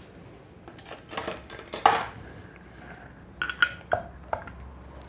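Kitchen utensils and dishware clinking and knocking in several separate sharp strikes, with a little scraping between them, as canned tomatoes are handled for mashing.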